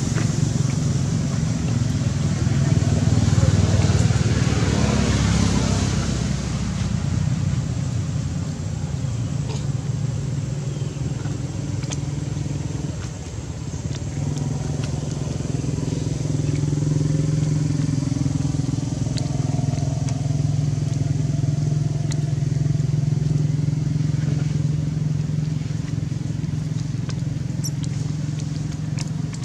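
A motor engine running with a steady low hum, louder over the first few seconds and again through the second half.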